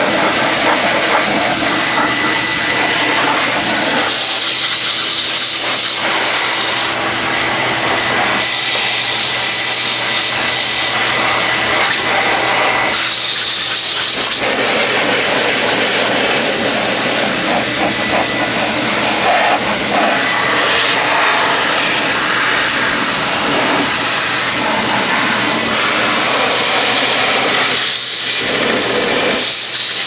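Vacuum cleaner running in reverse as a blower, a steady loud rush of air that blows dust out from around a refrigerator's condenser coil and fan. The hiss of the air swells and fades several times.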